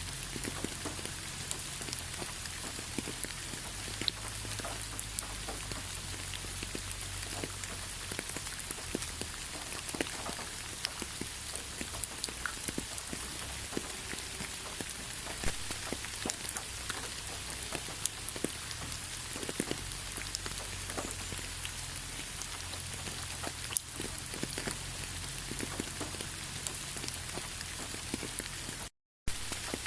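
Steady rain falling, an even hiss with many separate drop hits mixed through it. Near the end it cuts out for a fraction of a second.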